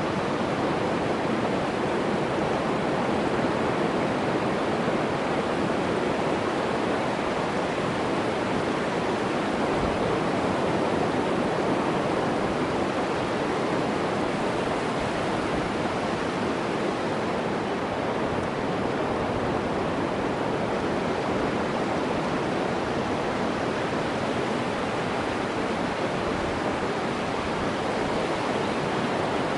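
Ocean surf breaking on a sandy beach, heard as a steady, even rush of waves.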